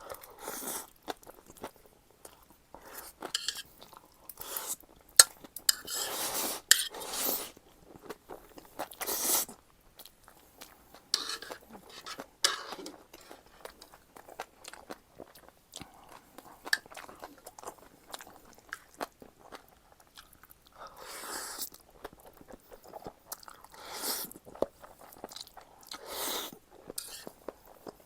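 A person eating close to the microphone, chewing and crunching black-bean sauce noodles and green onion kimchi. The chewing is wet and irregular, with small clicks and several louder noisy bursts of about a second each.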